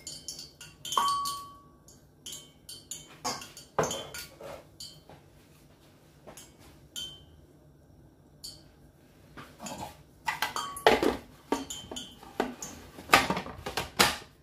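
Kitchen handling sounds: scattered clinks and clicks of utensils and dishes, with one clink that rings on briefly about a second in. Near the end comes a cluster of louder plastic clacks and knocks as the food processor's lid and feed-tube pusher are fitted; the motor is not running.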